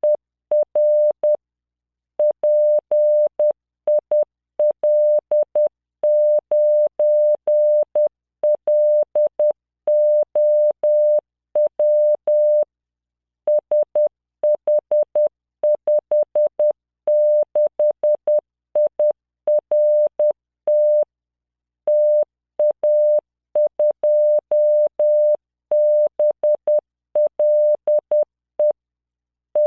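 Morse code practice tone from the LearningMorse training program: a steady 600 Hz beep keyed into dots and dashes at 10 words per minute, spelling practice words, with longer gaps between letters and words. Each beep starts and stops sharply with a faint click.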